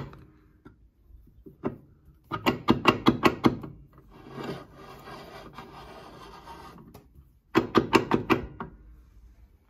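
The vise of an Epple BS 125 GS metal band saw being worked open and shut by hand: two runs of quick rasping clicks, each about a second long, with a softer steady rubbing between them.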